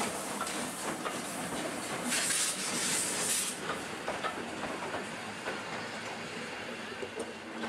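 Steam train running, with a scatter of clanks and knocks. A burst of hissing steam comes in about two seconds in and lasts about a second and a half.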